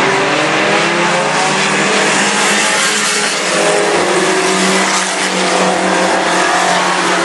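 Several mini-truck race engines running hard around an oval, their pitch rising and falling as the drivers accelerate and lift.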